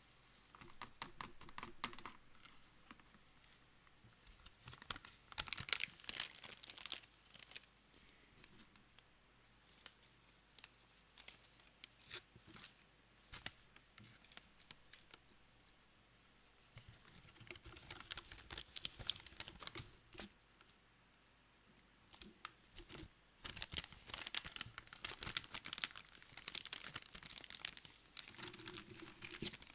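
A foil-lined paper coffee bag crinkling and rustling as it is handled, in irregular bursts with short pauses.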